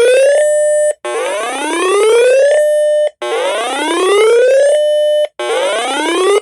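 Electronic emergency-alert whoop tone: a buzzy tone sweeps upward for about a second and a half, holds briefly, then cuts off, repeating about every two seconds. It is the attention signal that comes before a broadcast warning.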